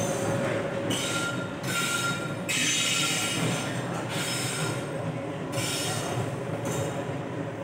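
Passenger train rolling along the rails with a steady rumble, its wheels squealing high-pitched on the track in spells that come and go several times, loudest about two and a half to four seconds in.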